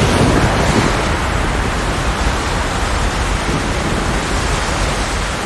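Hurricane wind: a loud, steady rush of storm noise with a heavy low rumble and no distinct events, presented as Hurricane Katrina.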